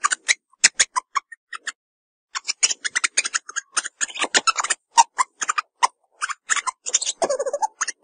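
Meerkats calling: rapid runs of short, sharp clicking chirps, with a brief pause about two seconds in and a longer, lower call about seven seconds in.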